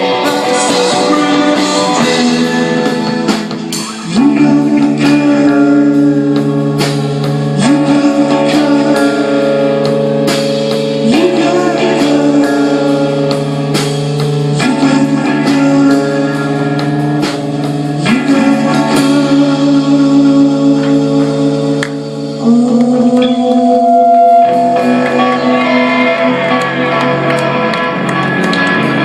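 Live rock band playing a song on guitars, bass guitar and drums, with held notes that slide up into pitch several times.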